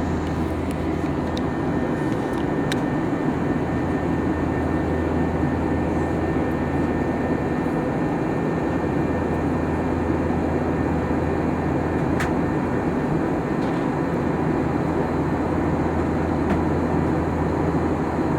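Steady cabin drone inside an Airbus A321-231 in flight: its IAE V2500 engines and the airflow past the fuselage make an even, unchanging low noise with a low hum beneath. A faint click comes about twelve seconds in.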